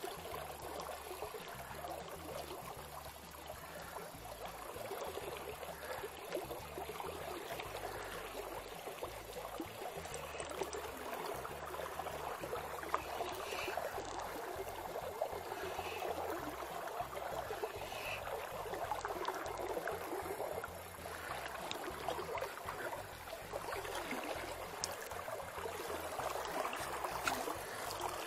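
Small river running past the bank, a steady rush of flowing water.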